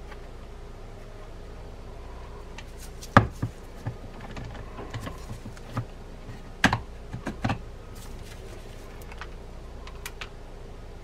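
Scattered clicks and knocks of a Shimano TLD25 lever-drag fishing reel's parts being handled and fitted back together, with two sharper knocks about three and six and a half seconds in.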